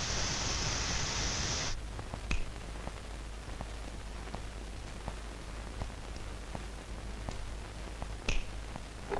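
Pressure cooker venting steam through its lifted weight valve, a steady hiss that cuts off suddenly after nearly two seconds. Then a quiet background with faint scattered clicks.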